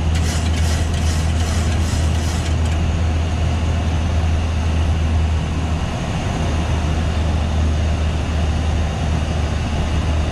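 Boeing 737-800 flight deck in the climb: a steady drone of engines and rushing air with a strong low hum. A faint, rapid high ticking sounds for the first couple of seconds.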